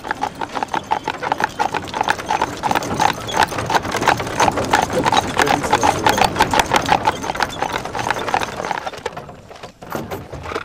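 Hooves of a pair of carriage horses clip-clopping on a paved lane: a quick, even clatter that grows louder and then fades away near the end.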